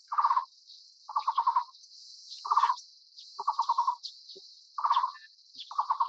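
Taiwan barbet calling: a short, rapid trill of knocking notes repeated about once a second, six times. A steady, high-pitched insect buzz runs underneath.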